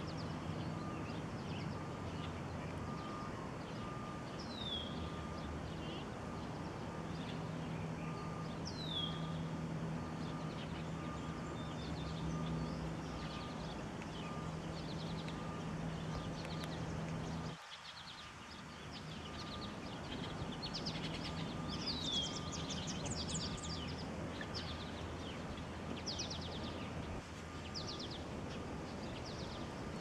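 Wild birds calling over a steady low hum and background noise: a short falling whistle repeats every four seconds or so, and in the second half come quick runs of high chips and trills. The low hum drops away briefly a little past the middle.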